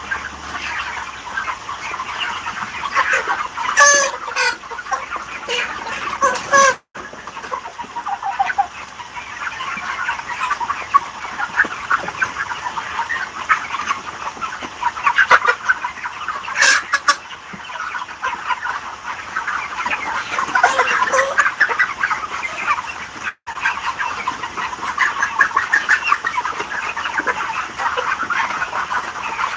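A large flock of chickens clucking continuously in a dense chatter of many birds, with a few louder calls standing out.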